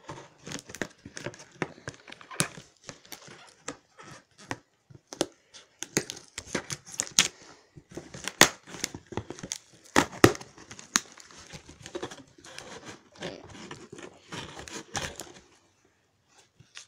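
Scissors cutting through packing tape on a cardboard shipping box, with the tape tearing and crinkling against the cardboard: many irregular sharp snips and crackles.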